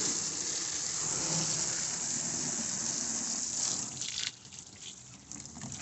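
Water from a hose spraying onto the floor inside a boat hull: a steady gushing splash that drops much quieter about four seconds in.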